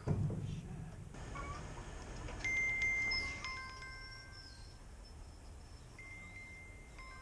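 Wind chimes ringing: several clear, held tones at different pitches from about two and a half seconds in, sounding again near the end, after a dull thump at the very start.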